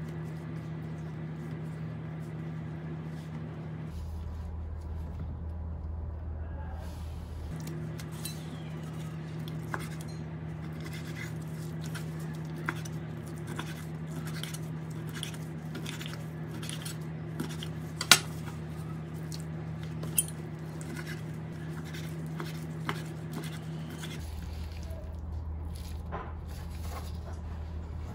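Kitchen utensils clinking and knocking against dishes during food preparation, in scattered irregular taps, with one sharp knock about 18 seconds in and another about 20 seconds in. A steady low hum runs underneath.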